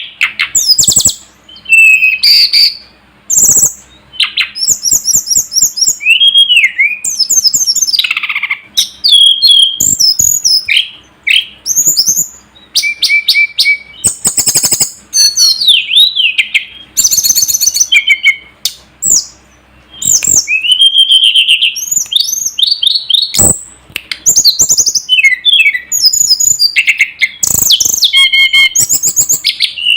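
Tledekan gunung (sulingan gunung) singing: a fast, varied string of clear whistled phrases and rapid trills that slide up and down in pitch, with short pauses between bursts. This is a masteran song recording, used to tutor other songbirds.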